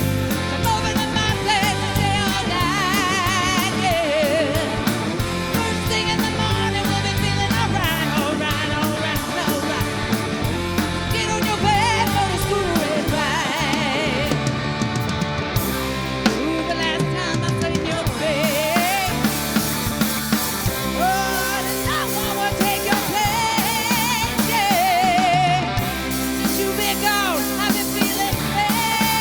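Rock band playing live: a lead singer over a drum kit and band.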